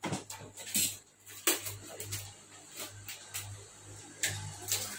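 Irregular clicks, taps and short rustles of hands handling and working on a foam RC airplane on a workbench, over a low steady hum.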